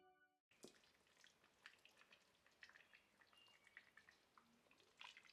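Near silence: guitar background music fades out and cuts off about half a second in, followed by faint scattered small clicks and ticks.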